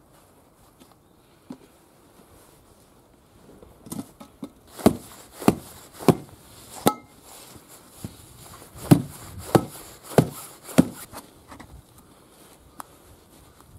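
Hammer blows on the sidewall of a rusted-on tractor tyre, beating the bead loose from its steel rim. About eight sharp strikes, roughly two a second in two runs with a short pause between, one with a brief metallic ring.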